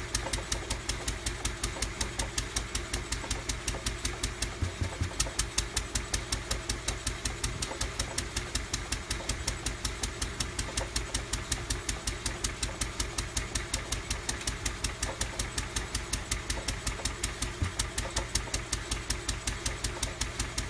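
Lister D single-cylinder stationary petrol engine running steadily, a fast even beat of firing strokes, while driving a belt to a pulley wheel.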